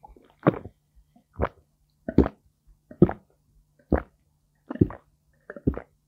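A person swallowing a drink in big gulps, close to the microphone: about seven loud gulps at a steady pace of a little under one a second.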